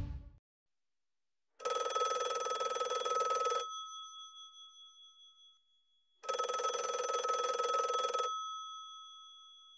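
Bell telephone ringing twice, each ring a rapid metallic trill about two seconds long with a brief lingering tone after it: an incoming call.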